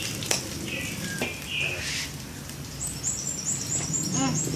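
Small birds chirping, with a quick run of high repeated notes in the second half, over a few light clicks and a steady low hum.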